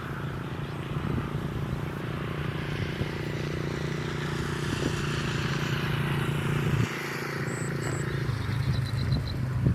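A motor vehicle's engine running with a steady low hum, a hiss swelling in the middle as it passes. The hum drops out briefly about two-thirds of the way through, and a few short high peeps sound near the end.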